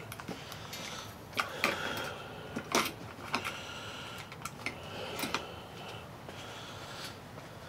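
Handling noise: a series of sharp clicks and knocks as a handheld digital hanging scale and its line are handled and laid down on a wooden workbench.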